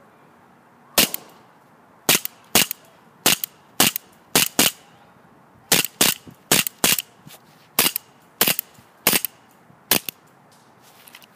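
Elite Force 1911A1 CO2 blowback airsoft pistol firing fifteen shots, one every half second to a second at an uneven pace. Each shot is a sharp crack from the CO2 discharge, followed at once by the metal slide cycling.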